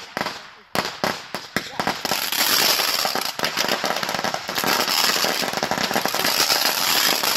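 A string of Black Cat firecrackers going off: separate sharp bangs at first, then from about two seconds in a dense, rapid, unbroken run of bangs.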